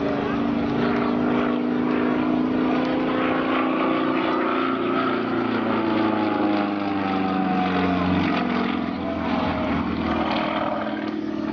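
Sukhoi Su-26's nine-cylinder radial engine and propeller running hard in aerobatic flight, a steady drone whose pitch slides down about halfway through, then holds.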